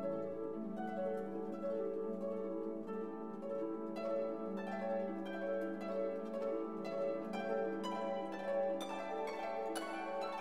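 Instrumental background music: plucked string notes over sustained lower tones, with the notes coming faster near the end.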